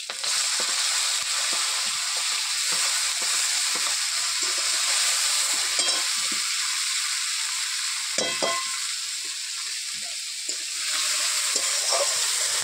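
Chopped onions dropped into hot mustard oil in a steel kadai, sizzling loudly the moment they go in. A metal spatula stirs them, with occasional scrapes and knocks against the pan.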